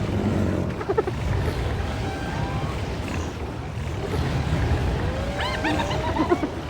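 Animal stampede sound effect: a steady low rumble with wild animal calls over it. A burst of high rising-and-falling calls comes about five seconds in.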